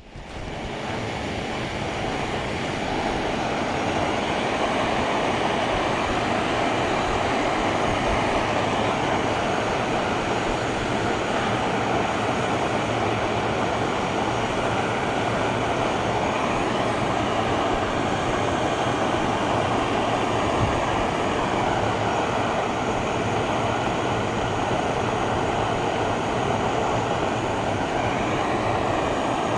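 Jetboil canister gas stove burner running: a steady, even roar of gas flame heating water in the stove's cup. It swells in over the first few seconds, then holds constant.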